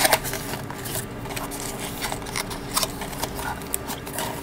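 Small cardboard gashapon kit box being opened and handled by hand: scattered light clicks and rustles of the cardboard flaps and tabs.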